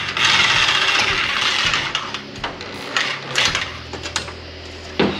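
Corded electric sheet-metal shears cutting 0.090-inch aluminum sheet with a steady, high buzzing cut that stops about two seconds in. A few short bursts follow as the cut is trimmed.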